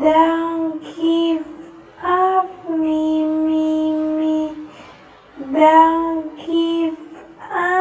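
A high, childlike voice singing drawn-out 'me' notes on nearly one pitch, some short and one held for about two and a half seconds, with brief breaks between them.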